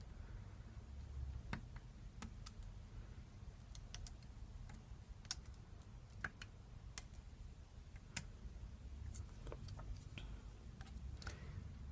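A lock pick working the pin tumblers of a Mul-T-Lock Garrison padlock cylinder: faint, irregular small metallic clicks as the pick lifts pins and they set, over a low steady hum.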